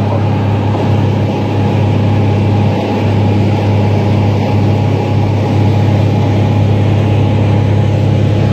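Steady, loud engine drone: a constant low hum with a noisy wash above it, unchanging in level.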